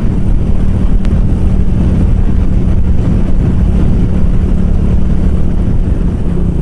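Suzuki VanVan 200's single-cylinder engine running steadily at road speed, heard from a camera mounted on the bike, with wind noise on the microphone.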